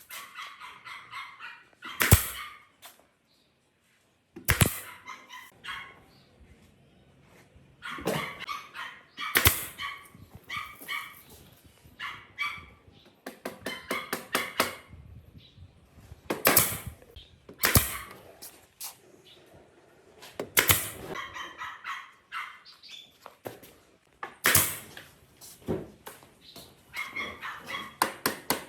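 Sharp knocks every few seconds, about seven in all, with short rasping sounds in between.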